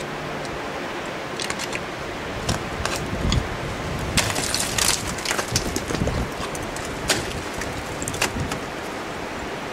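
Ice axe picks striking the ice of a frozen waterfall: several sharp knocks and clicks, with a burst of rapid clatter about four seconds in, over a steady hiss.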